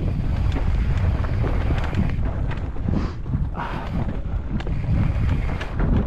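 Mountain bike descending a rough dirt trail: wind buffeting the microphone over a steady rumble of tyres on dirt, with scattered clicks and rattles of the bike over rocks and a brief louder scuff a little past halfway.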